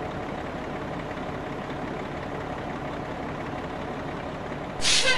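Cartoon fire truck engine running steadily at idle. Near the end it is cut across by a sudden loud hiss.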